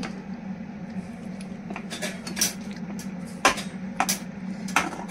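A metal spoon scraping and clinking against a wok-style pan while stirring macaroni, with a series of sharp clinks, the loudest about three and a half seconds in.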